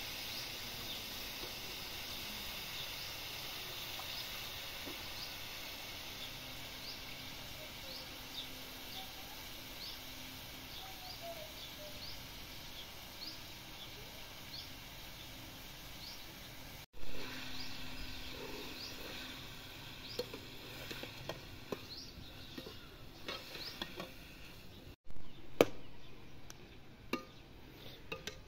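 Steel ladle clicking and knocking against a steel karahi of pumpkin pieces cooking over a wood fire, in scattered sharp strokes that grow busier near the end. Behind it is a steady faint hiss, with a faint high chirp repeating about once a second through the first half.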